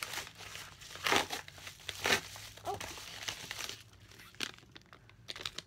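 Cardboard package being opened by hand and a white paper packet pulled out: irregular rustling, crinkling and scraping, loudest about one and two seconds in.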